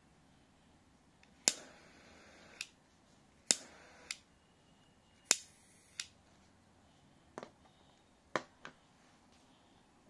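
Dragon-shaped novelty gas lighter being lit three times: each time a sharp click of the ignition button, a second or so of gas hissing, then a click as the button is let go. A few lighter clicks follow near the end.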